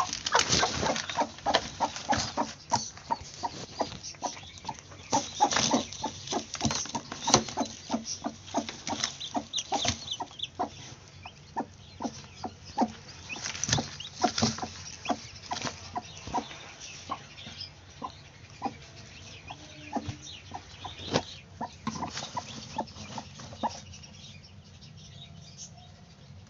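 Broody hen settling onto her clutch of eggs, rustling and shifting in the nest with low clucks. The rustling is dense over roughly the first ten seconds, then thins out and goes quiet near the end as she sits down.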